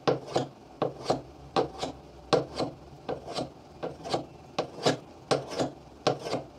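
Steel chisel stroked by hand on sandpaper glued to a glass plate, a dry rasping scrape with each pass, about two or three strokes a second, mostly in pairs. This is the honing stage that takes the burr off the freshly ground edge.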